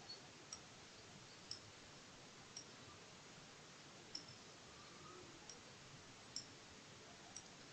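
Near silence with faint computer mouse clicks, roughly one a second.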